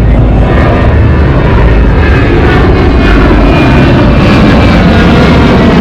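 Loud, steady vehicle noise with no breaks or distinct impacts.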